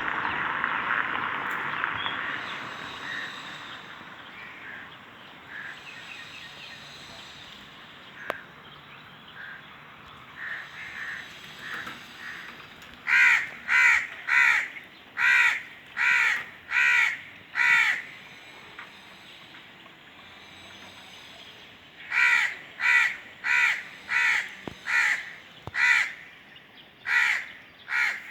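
Crows cawing: faint, scattered caws at first, then two loud runs of rapid, evenly spaced harsh caws, the first about halfway through and the second near the end. A rushing noise fades out over the first few seconds.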